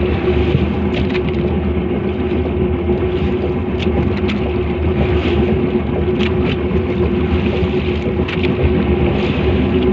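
Small boat's engine running steadily under way, a constant drone with a hiss of wind and water over it and a few brief sharp ticks.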